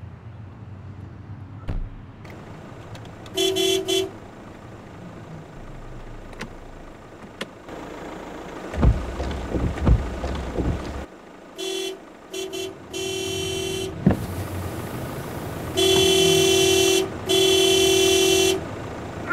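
Car horn sounding in separate blasts: one brief toot, then a quick run of short toots, then two long blasts near the end. A cluster of dull thumps comes in the middle.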